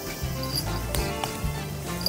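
Background music with sustained low notes, and a few faint clicks.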